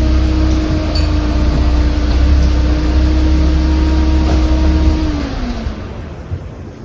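A motor vehicle's engine running close by with a steady low hum. About five seconds in its pitch drops and the sound fades away.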